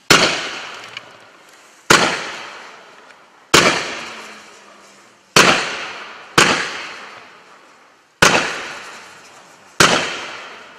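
Category 4 low-noise firework barrage firing neon comet shots one at a time. There are seven sharp launch reports, roughly one every one and a half to two seconds, and each trails off over a second or so as the comet climbs. No loud bursting bangs follow the launches.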